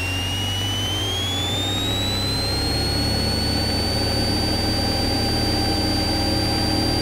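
Cessna 172SP's Lycoming IO-360 engine coming up to full takeoff power, heard through the cockpit intercom: a steady low drone with a high whine that rises in pitch over the first few seconds as the RPM climbs, then holds steady.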